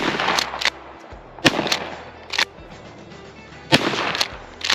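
Shotgun shots fired at deer in quick succession: three loud blasts, each ringing out for about half a second, with several sharper, shorter cracks in between. Background music runs underneath.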